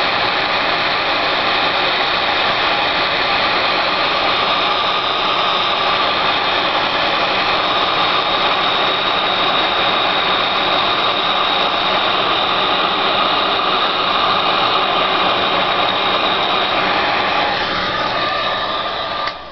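Craft embossing heat gun blowing steadily as it melts embossing powder on a chipboard letter. It winds down and stops near the end.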